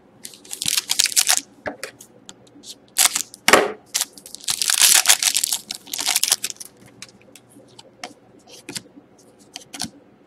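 Foil trading-card pack being crinkled and torn open in several loud bursts over the first six seconds or so, followed by light clicks and snaps as the cards are handled.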